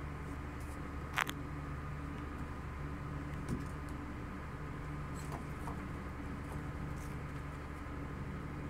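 One sharp click about a second in, then a few lighter knocks, as plastic PPR pipe and fittings are handled and pushed into place, over a steady low hum.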